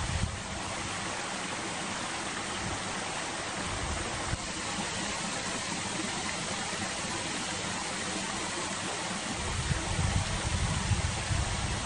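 Wind blowing on the microphone: a steady rushing hiss, with low gusts buffeting it at the start and again from about nine and a half seconds in.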